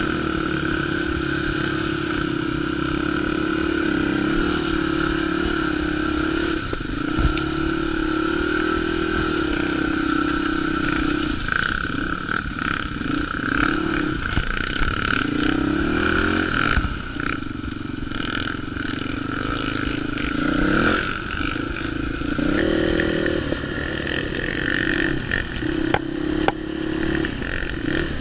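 Dirt bike engine running at low speed, its revs rising and falling repeatedly as the throttle is worked, with a few sharp knocks along the way.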